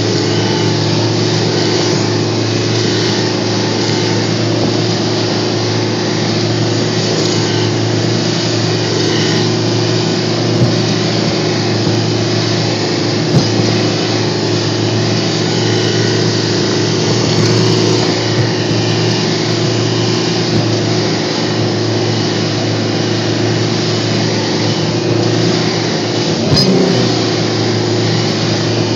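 Aluminium rescue boat's engine running steadily at speed, under a dense rush of wind and water. A few brief knocks as the hull bounces over waves.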